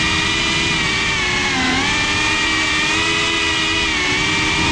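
Brushless motors and ducted propellers of a GEPRC Cinelog35 cinewhoop FPV drone whining, heard from a camera mounted on the drone itself. The pitch sags and recovers with throttle, dipping about a second and a half in and again near the end.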